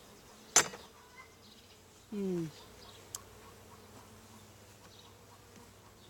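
Honeybees buzzing around an open hive, a faint steady hum, with a brief falling buzz about two seconds in. A single sharp click comes just after the start.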